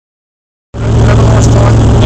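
A 4x4's engine running, heard loud from inside the cabin: a steady low drone that cuts in suddenly less than a second in.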